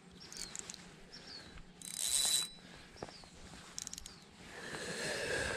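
Spinning reel handled on the rod, giving light mechanical clicks and a short whir about two seconds in.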